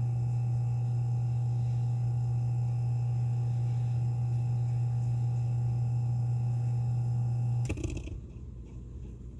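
Worn Leslie speaker upper-rotor slow motor running with a loud, steady hum and a higher whine, then stopping abruptly near the end, after which a faint irregular rattle remains. The motor's noisy running and stopping are the signs that it needs a rebuild.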